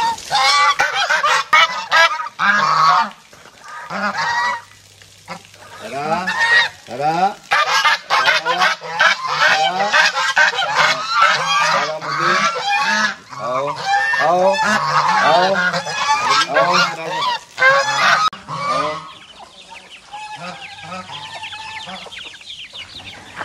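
A flock of farmyard poultry calling loudly, many calls overlapping, dying down to fewer, quieter calls about 19 seconds in.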